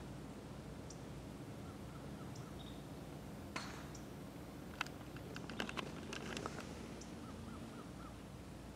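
Quiet outdoor air with one sharp crack about three and a half seconds in: a golf club striking the ball off the tee, heard from a distance. A few small clicks follow, with faint bird chirps.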